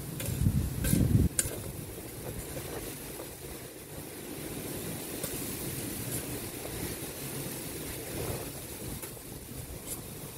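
Wind buffeting the microphone, with a strong low gust during the first second or so, and a few sharp clicks of a spade working the garden soil.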